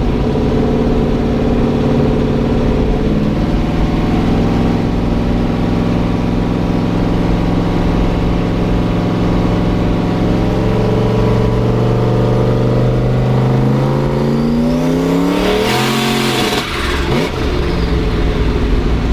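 Turbocharged LS V8 in an S-10 pickup heard from inside the cab, running steadily at cruise, then revving up over a few seconds. Near the end a brief rushing hiss as the revs fall off, then it settles back to a steady run.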